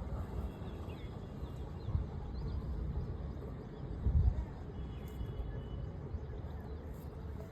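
Outdoor garden ambience: a steady low rumble that swells twice, with faint high chirps over it.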